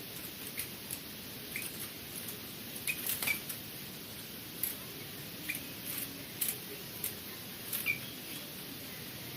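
Caged birds giving scattered short chirps and clicks over a steady hiss.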